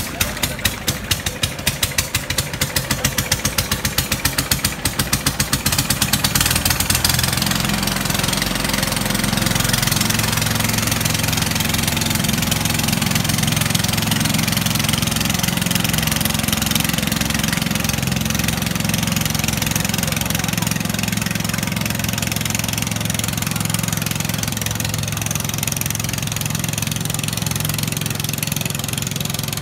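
Small long-tail boat engine driving a propeller shaft. It starts as a slow, distinct putting that quickens, then about seven seconds in it runs up to a steady higher speed as the loaded boat gets under way.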